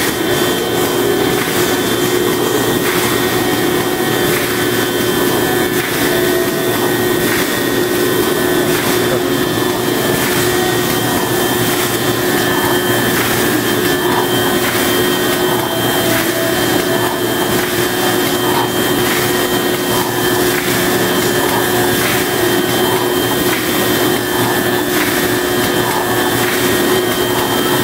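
Plastic bag-making machine with wicketer running: a steady whirring machine noise with a steady hum, and a light regular clack about once a second as it cycles.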